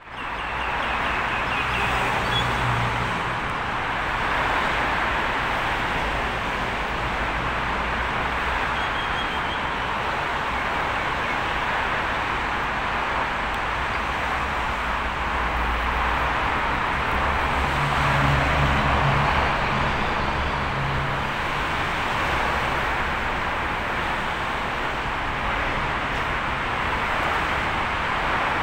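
Steady outdoor rail-yard and city background noise, with the low engine hum of a distant, slowly approaching diesel locomotive. The hum swells briefly twice, about two seconds in and again around eighteen to twenty seconds in.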